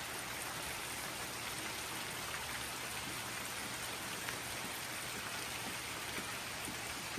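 Pouring rain falling steadily: a dense, even hiss with scattered drops.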